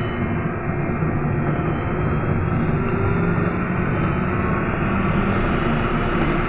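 BKM 321 trolleybus under way, heard inside the passenger cabin: a steady rumble of wheels and body on the road with a faint whine from the electric drive on top.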